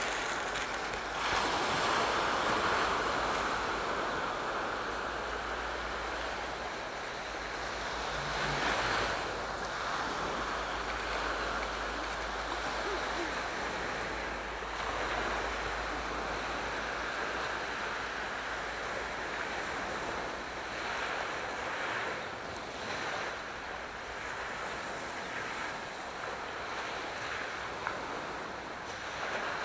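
Aegean Sea waves breaking and washing on the shore in repeated slow surges, with a steady low rumble underneath that fades out about two-thirds of the way through.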